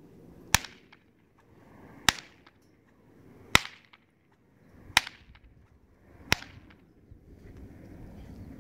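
A long-lashed whip swung overhead and cracked five times in a steady rhythm, about one crack every second and a half, with a short swish building up before each sharp crack.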